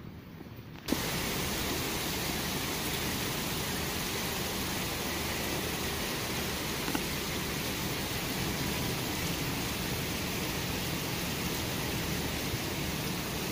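Heavy rain pouring down: a steady, dense hiss that cuts in suddenly about a second in.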